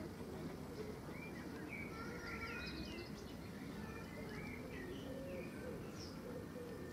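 Outdoor birdsong: small birds chirping in short phrases, mostly in the middle, with a dove cooing low in the background over a steady low outdoor rumble.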